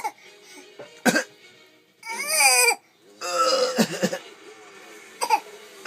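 A six-month-old baby's put-on, fake coughs: short coughs about a second in and again near the end, with two longer whiny, cry-like vocalizations in between.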